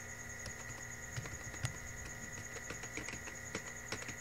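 Computer keyboard keys clicking at an uneven pace as a word is typed, a few keystrokes a second, over a steady faint high whine.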